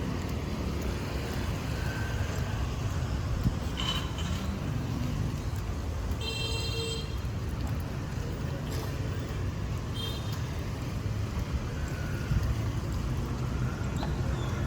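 Steady rumble of passing street traffic, with short horn beeps about four and ten seconds in and one longer horn blast near the middle.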